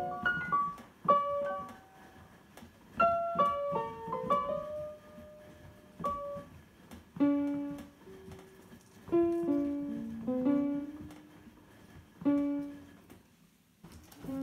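Roland JV-90 synthesizer's piano sound, its keys played by an Aeolian push-up piano player pumped by hand from a paper roll. It plays short phrases of single notes and chords with brief pauses between, each onset with a sharp click. A few notes are missing from the playing because the player's bellows need harder pumping.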